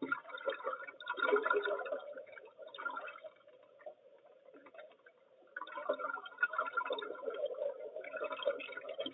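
Water gurgling and bubbling as heard underwater, irregular and crackly. It dies down for a couple of seconds in the middle, then picks up again.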